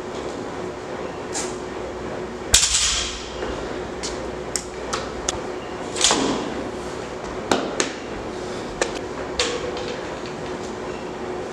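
Metal gym weights clanking: two loud ringing clangs about two and a half and six seconds in, with lighter clicks and knocks in between, over a steady hum.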